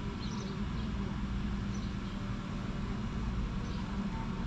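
Steady low background rumble with a few faint, short bird chirps.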